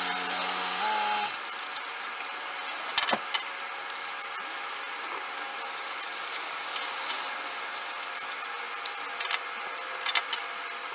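Cordless drill with a countersink bit running at steady speed in a hickory handle's pin hole, stopping about a second in. After it come light clicks and scraping, with a sharper knock about three seconds in, as the bit is moved between holes.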